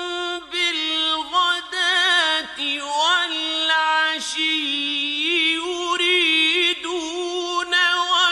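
A man's voice reciting the Quran in a long, melodic, drawn-out phrase. The pitch stays mostly on one high note, decorated with wavering ornamental runs and brief dips, and the recitation has added echo.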